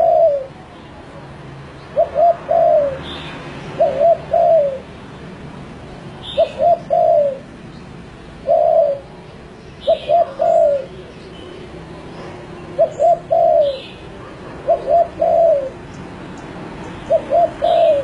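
Spotted dove cooing: a repeated phrase of two short coos and a longer, falling one, given about every two seconds.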